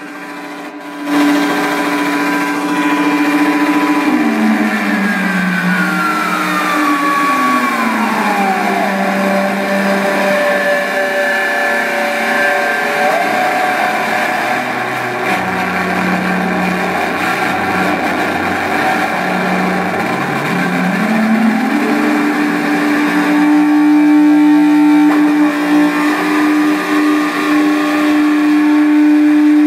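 Southwest Technical Products (SWTPC) Ambience Synthesizer droning through a PA: steady tones over a hiss of noise. The pitch slides down over several seconds as the knobs are turned, then rises back about two-thirds of the way through.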